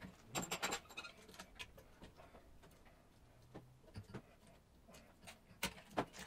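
Faint metallic clicks and clinks of a valve spring compressor and valve parts being handled on a tractor cylinder head: a quick run of clinks about half a second in, scattered light ticks, and two sharper clicks near the end.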